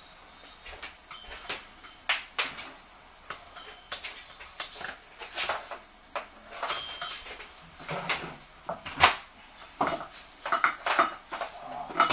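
Ceramic cat drinking fountain's pump starting up and bubbling, with water gurgling in irregular short spurts. There is only half a litre of water in it, too little for the pump to draw water properly.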